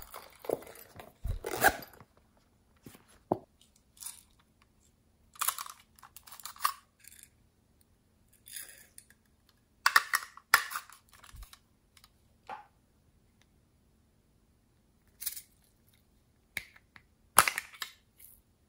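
Small plastic containers and a zipped plastic pouch being handled: scattered short crinkles, rustles and sharp clicks, separated by quiet gaps of a second or more.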